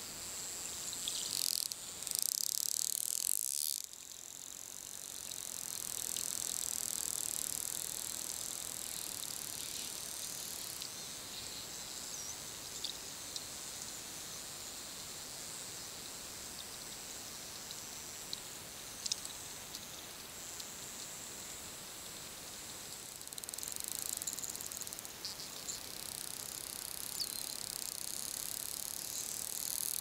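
Underwater sound of wild bottlenose dolphins: short high whistles gliding up and down, heard a few times, with bursts of echolocation clicks, the loudest a couple of seconds in. All of it sits over a steady high-pitched underwater hiss.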